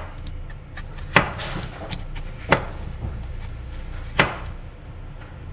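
Knife chopping through zucchini pieces onto a plastic cutting board: three sharp knocks about a second and a half apart as the bigger chunks are cut into cubes.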